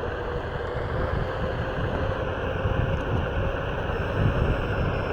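Onewheel GT electric skateboard riding along: a steady hub-motor whine over rolling rumble and wind on the microphone.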